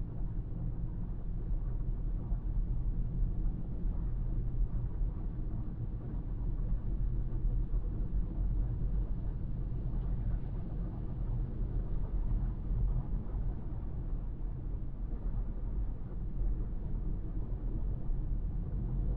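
Car driving at highway speed: a steady low rumble of tyre, road and engine noise.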